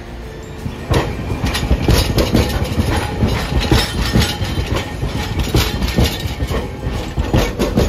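Hiroshima Electric Railway 3700-series articulated tram rolling past close by. Its wheels clatter over the station trackwork in a string of irregular clacks and knocks over a low rumble, starting about a second in.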